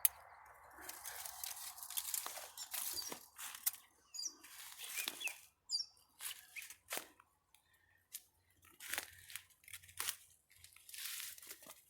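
Dry brush, leaves and twigs crunching, rustling and snapping in irregular bursts as someone pushes through thorny undergrowth on foot.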